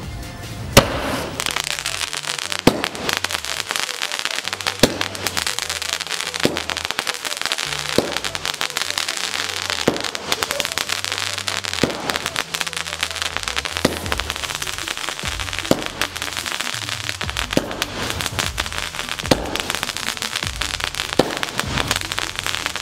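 A 12-shot aerial firework cake firing just after its fuse is lit: a sharp bang about every two seconds, about a dozen in all, with crackling, hissing sparks between the shots.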